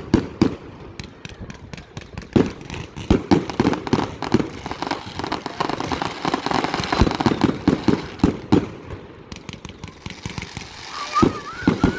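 Fireworks going off: rapid volleys of sharp bangs and cracks, thinning out briefly around two-thirds of the way through before picking up again.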